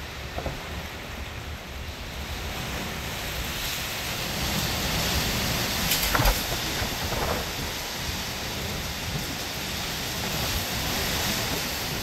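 Strong wind gusting through trees and buffeting the microphone with a low rumble. It builds to a louder gust about halfway through, with brief crackles as it peaks.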